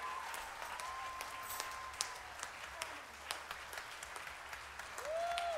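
Audience applause after a live song: many hands clapping, with a few voices calling out, one cheer rising and falling near the end.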